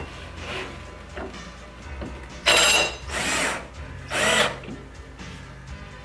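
Hitachi cordless drill/driver driving a screw through a metal L-bracket into the cabinet's floor panel, in three short bursts starting about two and a half seconds in, the motor pitch bending as the screw bites.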